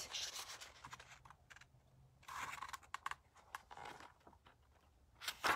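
Picture book pages being turned and handled: soft, scattered paper rustles and small taps, a little louder about two and a half seconds in and again near the end.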